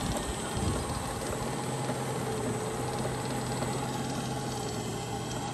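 An engine running steadily with a low, even hum, along with some rattling mechanical noise.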